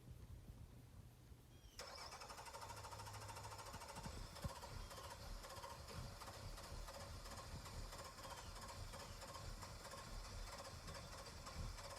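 A flooded car engine cranking steadily on its starter without catching, heard faintly.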